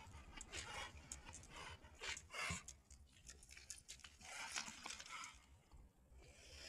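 A dog panting in short, uneven breaths, with scraping and crunching steps on a gritty concrete bank.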